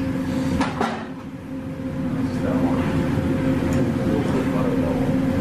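A metal spatula and fork clink against a steel teppanyaki griddle as the chef cuts and scrapes calamari, with two sharp taps about a second in. Under it runs a steady mechanical hum.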